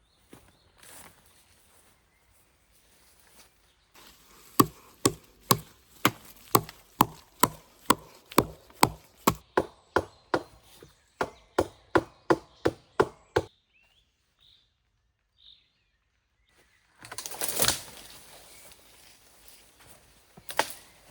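Wood being chopped with an axe: about twenty sharp, even blows, roughly two a second, that then stop. A short rush of noise follows near the end.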